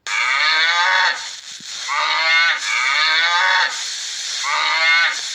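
Cattle mooing: about four drawn-out calls in a row, most falling in pitch.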